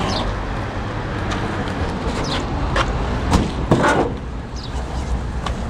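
RAF Latvija minibus engine running at a steady idle, with a few sharp knocks and clatters about three to four seconds in.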